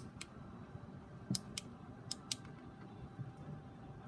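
Sharp plastic clicks, about six in quick pairs, from fingers working a small battery box switch for LED lights and handling LEGO parts.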